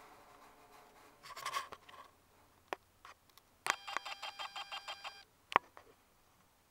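A rapid run of about nine short, steady-pitched electronic beeps over a second and a half, after a brief burst of noise and a few sharp clicks, with one loud click near the end.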